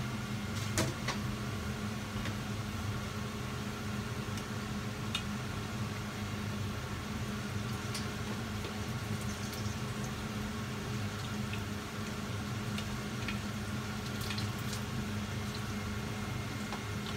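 Steady mechanical hum of a kitchen appliance motor, with a few light clicks and taps scattered through it.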